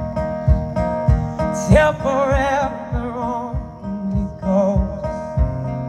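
Live acoustic guitar with a male singer holding long, wavering notes, over a steady beat of low thumps about three times a second.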